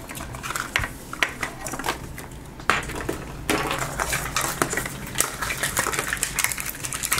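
Printed plastic wrapper of a Zuru 5 Surprise Mini Brands capsule ball crinkling and crackling as it is peeled off by hand, with small plastic clicks and taps from the handled pieces. The crackling grows denser about halfway through.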